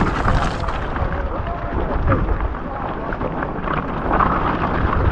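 Strong wind buffeting the microphone as a loud, continuous low rumble, with rain hissing over it.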